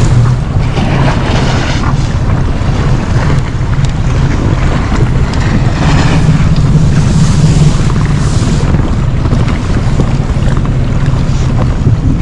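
Outboard motor of a Zodiac inflatable boat running steadily under way, with heavy wind noise on the microphone and rushing water; the wind swells in gusts a few times.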